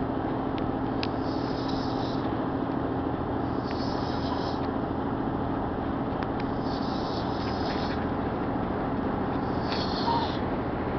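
A man snoring deeply, each breath carrying a high, whistling rasp about every three seconds, a snore likened to a bubbling tamale pot. A steady low hum runs underneath.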